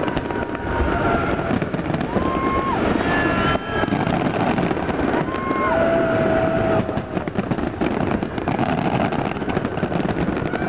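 Large fireworks display in a heavy barrage: a dense, unbroken run of shell bursts and crackling, with several short high whistles riding over it.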